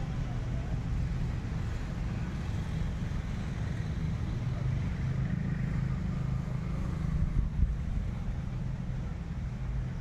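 Wind buffeting the microphone under a gathering storm: a steady low rumble that gusts louder about two-thirds of the way through.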